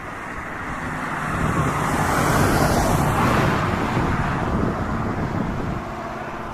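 A car passing on the road: tyre and engine noise swells to a peak a few seconds in, then fades away.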